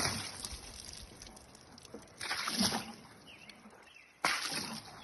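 Water splashed onto acacia wood slabs to water-pop the grain, in separate splashes: one tailing off at the start, another about two seconds in, and a third near the end.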